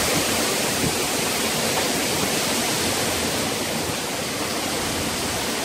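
Steady, heavy rush of wind-driven rain in a hurricane rain band, an even roar that neither rises nor falls.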